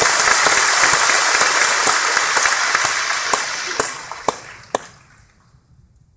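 Large seated audience applauding, then dying away over a few seconds into a few scattered claps.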